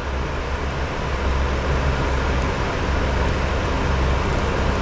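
Small soldering torch burning steadily: a constant hissing flame with a low rumble, held on a quad-helix solder joint while solder is melted in to build up the joint.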